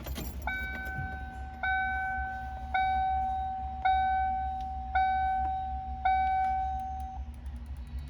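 1995 Ford Mustang GT's dashboard warning chime dinging six times, about once a second, each ding ringing on until the next. There is a sharp knock just before the first ding.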